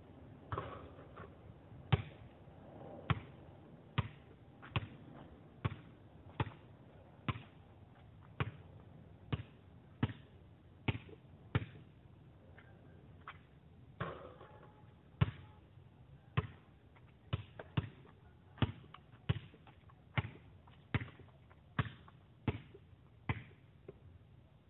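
Basketball being dribbled on an asphalt court: sharp bounces at a steady pace of about one a second, pausing for a couple of seconds about halfway through.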